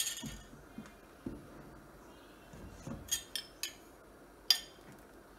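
A metal spoon clinking against the lemon-juice bowl and the rim of a steel pot, as lemon juice is spooned into hot milk to curdle it: one clink at the start, three quick clinks about three seconds in and one more a second and a half later.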